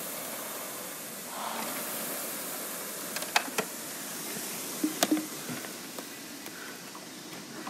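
Concept2 rowing machine's air flywheel whirring and slowly winding down, with a few sharp clicks and knocks about halfway through.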